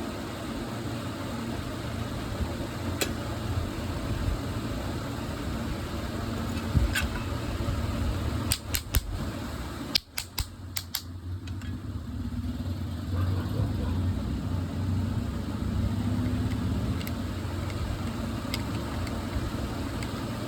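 Small electric exhaust fan motor running with a steady hum, with sharp clicks scattered over it, several in quick succession about halfway through.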